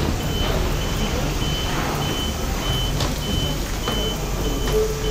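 A vehicle's warning beeper sounding a steady run of short, high beeps, about two a second, over a low engine rumble.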